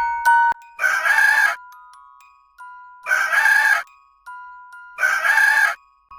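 A rooster crowing three times, each a short call about two-thirds of a second long, spaced about two seconds apart, with soft glockenspiel notes ringing between the calls.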